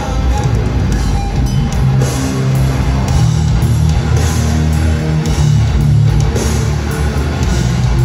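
Live rock band playing loud through a PA: electric guitars, bass and drum kit in an instrumental passage, recorded on a phone from within the crowd.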